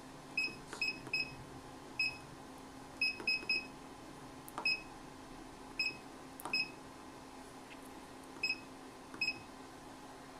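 RuiDa laser controller keypad beeping as its buttons are pressed: about a dozen short high beeps at uneven intervals. A steady low hum runs underneath.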